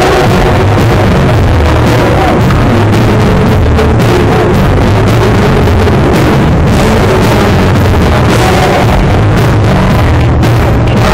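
Live band music with a singer, played loud through a PA and recorded on a phone, so heavy on the bass and overloaded into a constant distorted wash.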